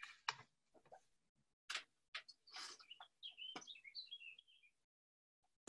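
Near silence with a few faint clicks, and faint bird chirping about three seconds in.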